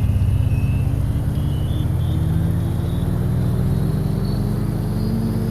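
Motor vehicle engine running, its pitch rising slowly and steadily as it accelerates.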